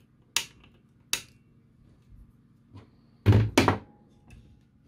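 Flush cutters snipping soldered component leads off a circuit board: two sharp clicks a little under a second apart. Just over three seconds in come two louder knocks, about a third of a second apart.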